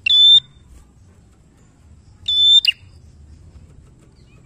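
Ashy tailorbird giving two short, piercing calls about two seconds apart, each a steady high note. The second call ends with a sharp extra note.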